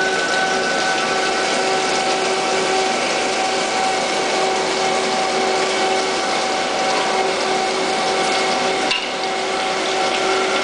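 Jenn Wei JW-21M CNC lathe cutting a spinning workpiece under flood coolant: a steady hiss of coolant spray and cutting, with a constant multi-tone whine from the running machine.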